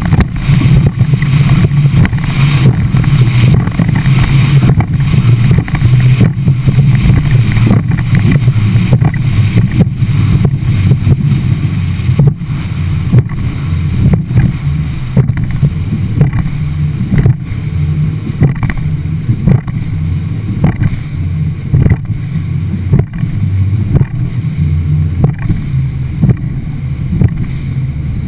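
Skeeter bass boat running at speed over choppy water: a steady low rumble of wind and running noise, with the hull slapping the chop about once a second.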